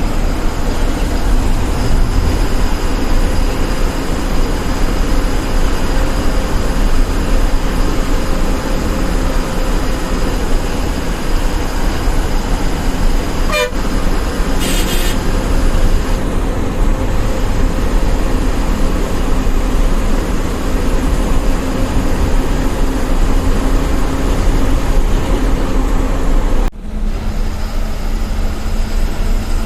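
A bus running on the highway, heard from inside the cabin: steady engine and road noise, with a brief hiss about halfway through.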